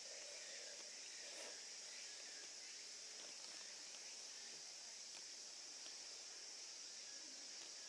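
Faint, steady high-pitched insect chorus trilling continuously, with a few faint ticks.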